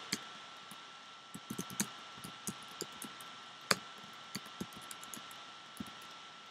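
Keystrokes on a computer keyboard: soft, irregular clicks with a sharper one about three and a half seconds in, over a faint steady hiss.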